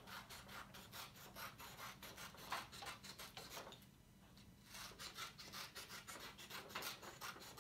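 Scissors snipping through construction paper as it is cut into thin strips: a run of short, quick snips with paper rustle, pausing for about a second midway, then resuming.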